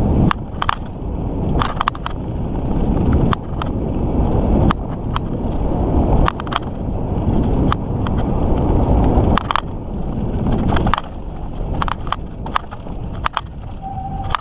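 Mountain bike riding over a dirt trail: a steady wind-and-tyre rumble on the microphone, broken by frequent sharp rattles and clicks from the bike jolting over bumps. There is a short squeak near the end.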